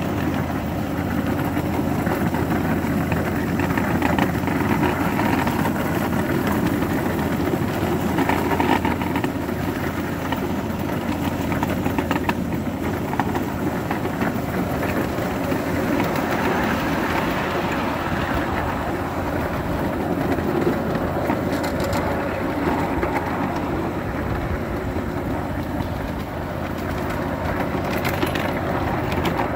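Model trains running on a layout: a steady mechanical rumble with scattered light clicks.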